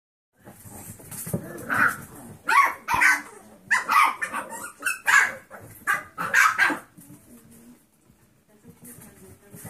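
Young puppies barking and yipping, a quick string of about ten short, high calls between two and seven seconds in, then only a few faint sounds near the end.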